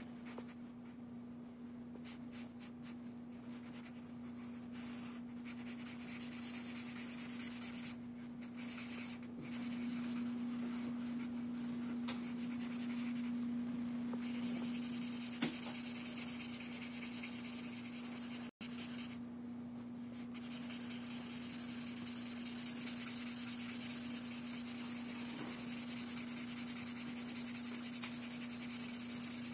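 Felt-tip marker rubbing across paper in repeated back-and-forth strokes as it fills in colour, over a steady low hum.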